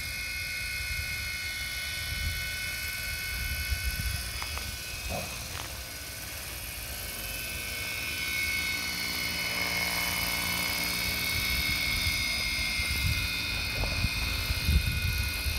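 Scratch-built radio-controlled CH-47 tandem-rotor helicopter mechanics running with a steady high whine from its twin rotors, growing louder about halfway through as it lifts off into a low hover. A gusty low rumble runs underneath.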